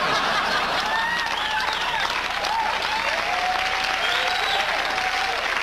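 Theatre audience applauding and cheering steadily after a stand-up punchline, with a few drawn-out whoops heard over the clapping.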